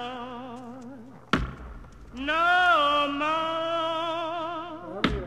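Music with a solo operatic voice holding long notes with a steady vibrato. One phrase fades out and another begins about two seconds in. There is a sharp click between the phrases and another near the end.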